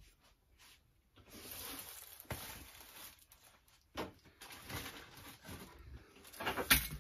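Rustling of plastic parts packaging, with a few light clicks and knocks of parts being handled; the sharpest knock comes near the end.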